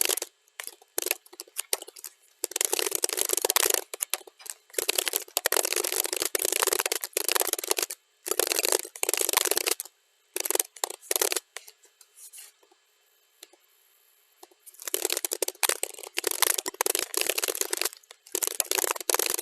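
Computer keyboard typing, played back at double speed, so the keystrokes run together into dense rapid clicking. It comes in bursts, with a pause of about three seconds past the middle before the typing resumes.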